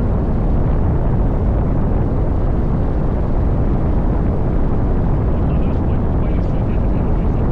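Steady wind buffeting on the microphone while riding, with the Kawasaki Voyager 1700 motorcycle's V-twin engine running underneath.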